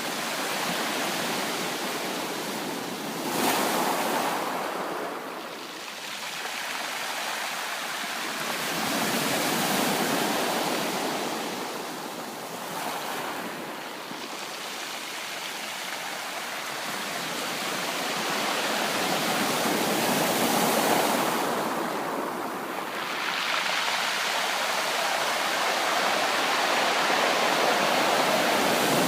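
Ocean waves breaking and washing on a shore, a continuous surging rush that swells and ebbs every several seconds, with a sharper surge about three and a half seconds in.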